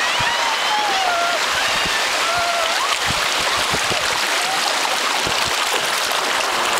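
Fast, shallow river water rushing and splashing around and over a bamboo raft running small rapids, with a few dull knocks.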